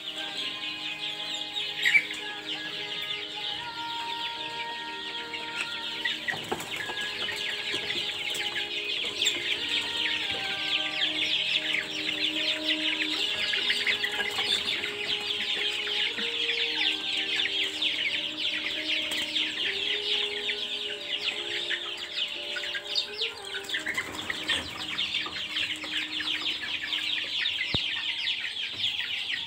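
A flock of young Javanese kampung chickens, about six weeks old, peeping and cheeping continuously with some clucks mixed in.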